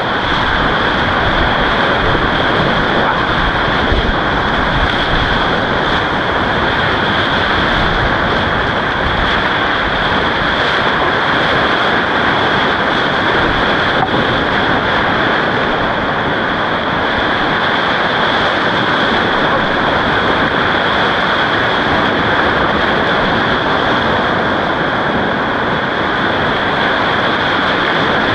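Steady, loud rushing of whitewater rapids around a kayak running them, the churning river water right at the boat.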